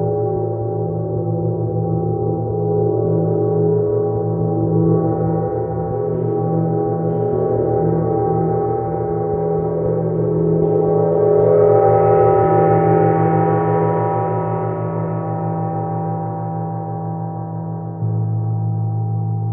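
Large gong ringing with a long sustained wash of many overlapping tones, its higher overtones swelling up midway and then fading. A soft mallet stroke near the end brings in a fresh, louder low hum.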